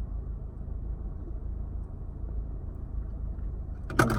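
Steady low rumble with a faint haze over it, and a single sharp click or tap near the end.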